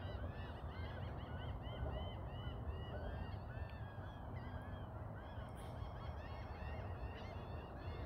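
A large flock of birds calling continuously, many short arched calls overlapping into one dense chorus, over a low steady rumble.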